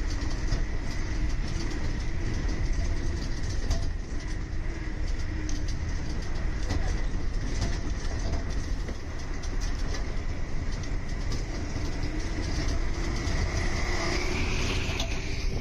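Steady engine and road rumble from inside a moving bus, with rattling clicks and a thin steady whine that rises in pitch near the end.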